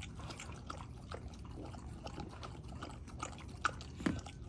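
Dogs licking and lapping a sticky slippery elm and honey paste: a run of quick, irregular wet clicks and smacks, with one louder smack about four seconds in.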